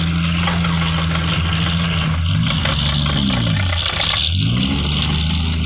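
A vehicle engine running steadily; about two and a half seconds in its revs drop away, then pick back up again a second or so later.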